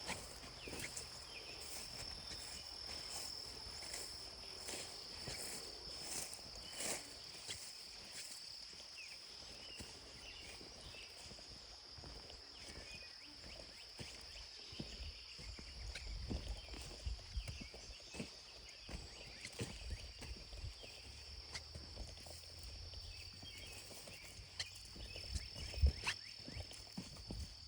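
Insects singing in a steady high-pitched drone, with scattered soft knocks and clicks and a low rumble underneath.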